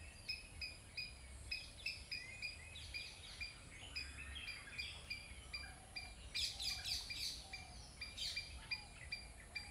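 Birds chirping. One bird repeats a short chirp two or three times a second, and a brief flurry of busier, higher calls comes about six to seven seconds in.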